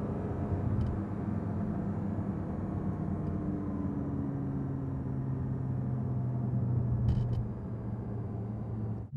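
Porsche 718 Cayman GT4's 4.0-litre flat-six heard from inside the cabin while driving, a steady engine drone whose pitch slowly falls. The sound cuts off abruptly at the very end.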